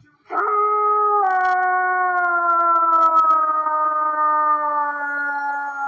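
A dog howling: one long, drawn-out howl that slowly falls in pitch.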